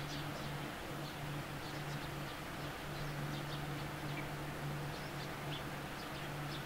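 A low, steady insect-like buzz that breaks off briefly a few times and resumes, with faint short high chirps scattered through it.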